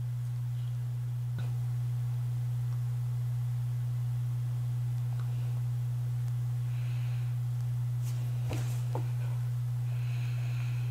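A steady low hum, with two faint clicks, one early and one after the middle.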